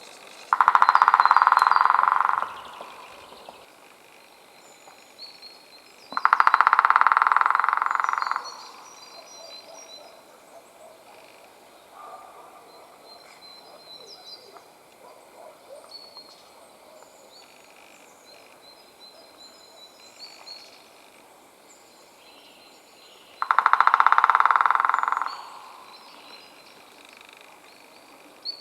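White-backed woodpecker drumming on wood: three rapid rolls of about two seconds each, near the start, about six seconds in and near the end, each fading out at its close. Faint small-bird chirps between them.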